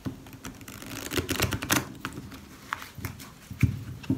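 A deck of Bonefire Tarot cards being riffle-shuffled on a cloth-covered table: a rapid run of card clicks about a second in, then a few separate knocks as the deck is pushed together and squared.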